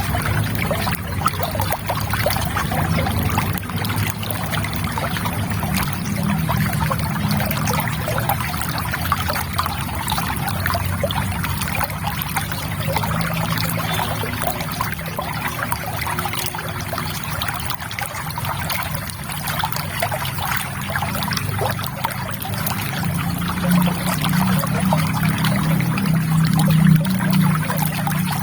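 River water trickling and babbling over stones: a steady wash of small splashes over a low rumble, swelling a little near the end.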